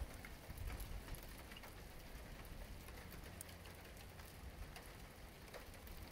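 Faint steady rain with scattered drips.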